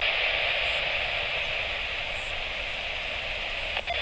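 Steady hiss of static from an airband radio receiver, with no one transmitting: the open channel between air traffic control calls.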